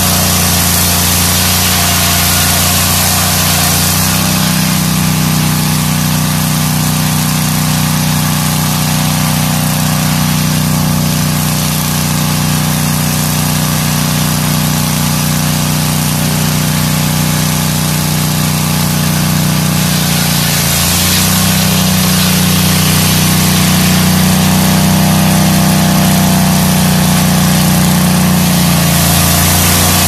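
Engine of a homemade Lucas Mill-style swing-blade sawmill running steadily while its circular blade rips a log, with a constant hiss of cutting. The engine note shifts about 4 seconds in and again about 20 seconds in.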